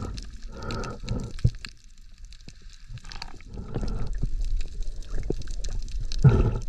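Pool water splashing and sloshing as a bottlenose dolphin slides in and out of the water across the wet poolside deck, with a quieter stretch in the middle and a louder splash near the end.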